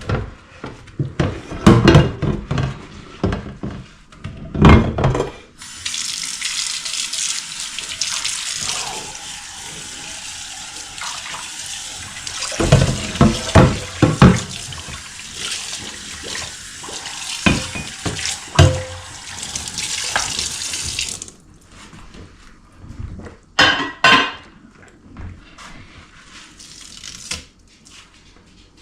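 Kitchen sink tap running for about fifteen seconds while dishes and pots are washed, with clattering of dishware and knocks against the sink before, during and after the water.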